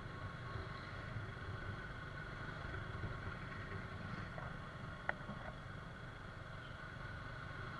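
Suzuki Gixxer SF 155's 155 cc single-cylinder engine running while riding, heard faintly under a low rumble of wind and road noise, with a brief click about five seconds in.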